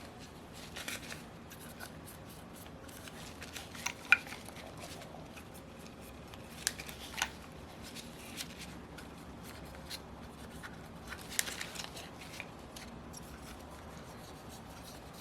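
Quiet handling of small metal engine parts, with soft rubbing and a few sharp light clicks. The loudest click comes about four seconds in, with others near the middle and toward the end. It fits a cotton swab wiping residue inside the crankcase and parts being turned by hand.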